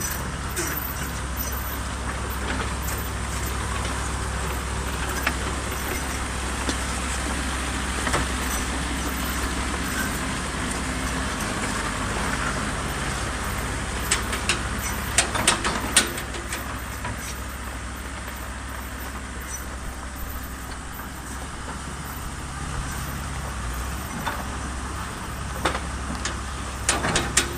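Komatsu PC200-7 excavator's diesel engine running steadily, with a few sharp clicks or knocks in the middle and again near the end.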